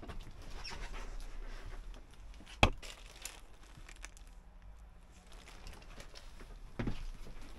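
Rustling and crinkling handling noise, with a single sharp click about two and a half seconds in and a duller knock near the end.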